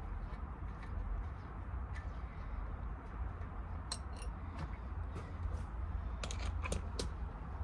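Scattered light metallic clicks and clinks of hand tools and bolts being handled while the cowling panel bolts are fitted, with a quick run of clicks near the end, over a steady low hum.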